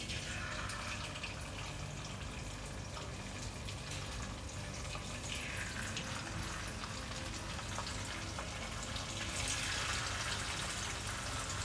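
Marinated anchovies frying in hot oil in a pan: a steady sizzle with fine crackling that grows louder about nine seconds in.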